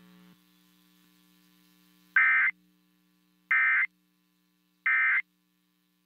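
Emergency Alert System End of Message code: three short, identical bursts of buzzy digital data, about a second and a half apart, closing the monthly test alert. A faint low hum fades out before the first burst.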